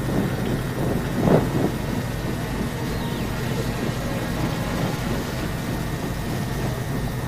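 Steady low outdoor rumble of open-air ambience, with one short burst of a voice about a second in.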